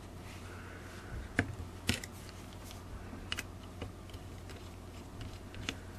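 A few separate small clicks and taps, two of the clearest in the first two seconds, as a compact camera's circuit board and lens unit is set down and a small screwdriver is fitted to one of its tiny screws. A low steady hum runs underneath.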